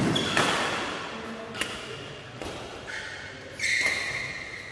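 Badminton rally: sharp racket strikes on the shuttlecock, each about a second or so apart, with short high squeaks of shoes on the court mat, ringing in a large hall.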